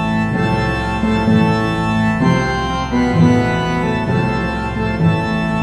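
Slow organ music in held chords that change about once a second, played as a mock funeral dirge.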